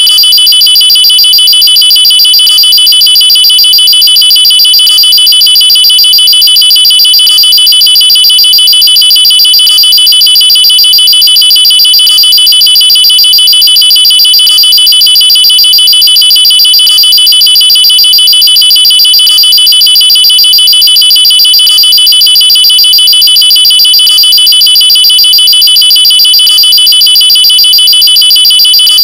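Electronic alarm siren sounding loud and high-pitched, pulsing rapidly at one steady pitch without rising or falling.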